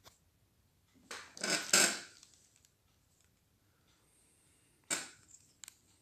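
Handling noise from a smartphone held in the hand: a quick cluster of rubbing knocks about a second in, then a single knock near five seconds and a faint one after it.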